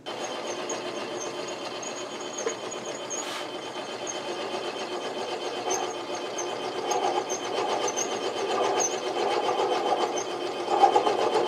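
Benchtop mini lathe switched on and running, its small motor and gear train giving a steady whine with a fine rapid rattle, with the tool cutting the spinning stock as it is fed in; the sound gets louder in the second half.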